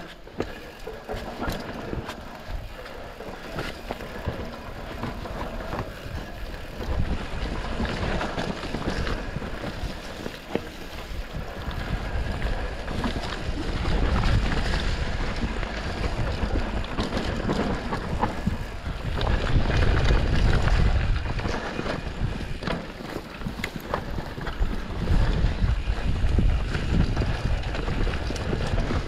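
Mountain bike rolling along a dirt trail: wind rushing over the camera's microphone, with many small knocks and rattles from the tyres and bike over bumps. The rush grows louder about halfway through as speed picks up.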